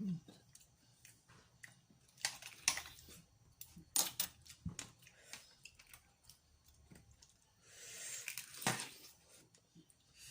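Close-up eating sounds of boiled seafood: chewing, with irregular sharp clicks and crunches of shells being handled and cracked, and a longer hissy rustle near the end.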